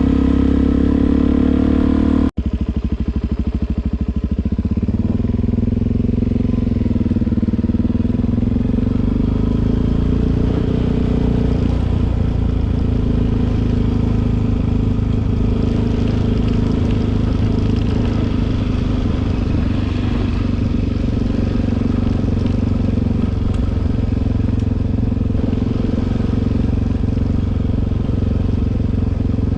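Suzuki DR-Z400 single-cylinder four-stroke engine running steadily as the motorcycle rides along, with a momentary break in the sound a couple of seconds in.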